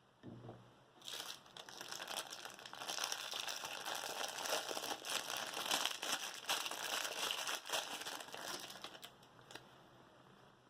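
Dense crinkling and rustling from about a second in, fading near the end, after a short low knock at the start.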